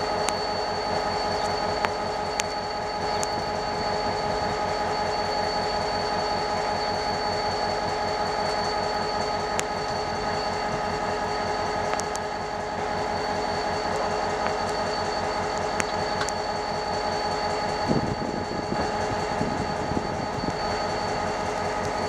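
EMD GT22 diesel-electric locomotive working as it pulls a passenger train away from a station: a steady diesel throb with several constant high whining tones over it, and a few sharp clicks.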